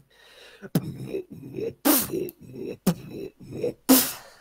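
Beatboxing with throat bass: short low vocal bass pulses under sharp snare- and hi-hat-like mouth hits about once a second.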